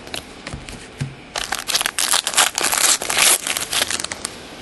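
Foil trading-card pack wrapper crinkling as it is torn open and crumpled: a dense crackle that starts about a second and a half in and lasts nearly three seconds, after a few light clicks of cards being handled.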